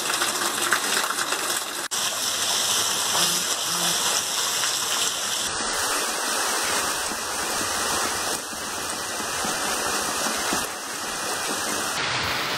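Heavy rain falling steadily, with rainwater pouring off a roof edge and splashing down in the first few seconds. The sound changes abruptly about six seconds in and again near the end.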